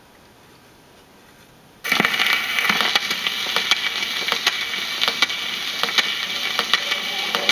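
Surface noise of a 78 rpm shellac record as the turntable stylus sets down: a loud hiss and crackle starts suddenly about two seconds in, with a sharp click coming round about once every three-quarters of a second, once per turn of the disc.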